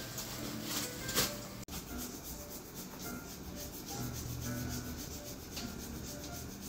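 Repeated rubbing strokes of a foot file against the heel, scraping off hard callused skin.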